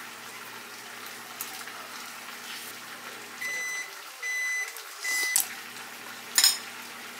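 An electronic appliance beeps three times, each beep a steady high tone about half a second long, then a sharp clack about a second later.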